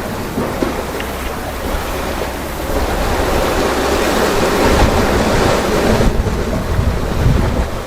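Sea waves surging and washing, growing louder in the middle and easing off, with wind rumbling on the microphone.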